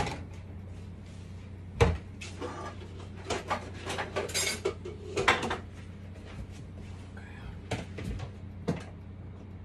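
Kitchen clatter of dishes and cupboards being handled: a sharp knock about two seconds in, a run of clinks and knocks from about three to five and a half seconds in, and another knock near the end, over a steady low hum.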